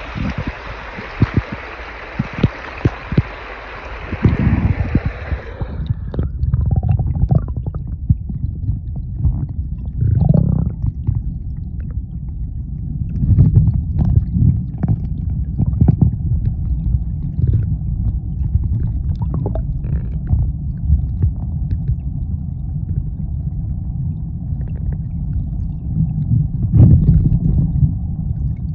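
Spring water rippling and splashing over stones. About six seconds in, the microphone goes underwater and the sound turns suddenly to a muffled low rumble of flowing water, with gurgles and dull knocks.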